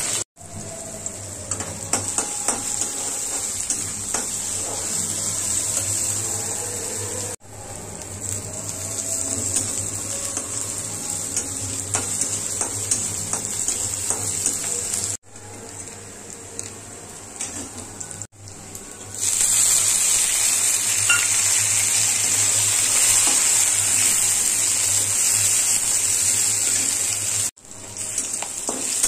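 Chopped onion and vegetables sizzling in hot oil in a metal kadai, with a metal spatula scraping and clicking against the pan as they are stirred. The sizzle drops out for an instant several times and grows louder about two-thirds of the way through.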